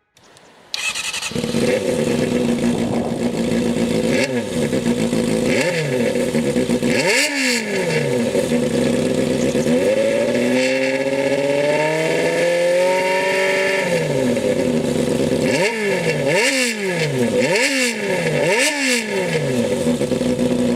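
Kawasaki Balius 250's inline-four engine running through a hollowed-out, straight-through silencer. It idles between sharp throttle blips, is held at higher revs for about three seconds in the middle, and is blipped quickly several times in a row near the end.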